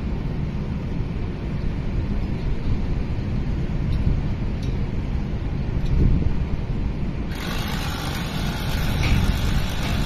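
Steady low wind rumble buffeting the microphone, with a brighter hiss setting in suddenly about seven seconds in and a few faint knocks.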